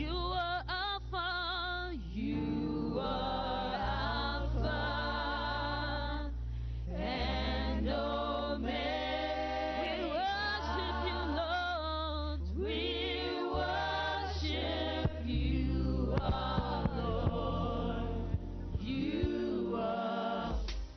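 Gospel worship song: voices singing long held notes with vibrato over a sustained bass line.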